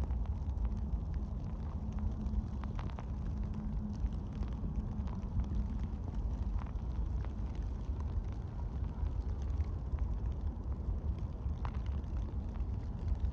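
Blizzard wind buffeting the microphone, a steady low rumble, with faint scattered ticks and crunches over it.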